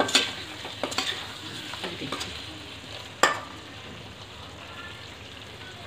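A metal spatula stirring and scraping thick paneer masala in a steel kadai, over a steady low sizzle of the gravy frying. There are a few clinks against the pan, the sharpest about three seconds in.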